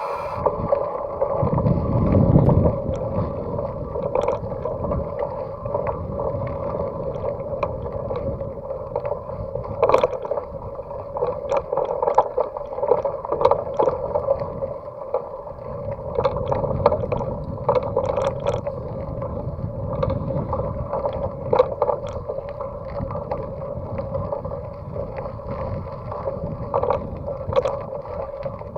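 Bicycle with a Saturn Atlas 2.0 hub being ridden: a steady buzz from the hub and tyres, with scattered knocks and a low rumble from the road.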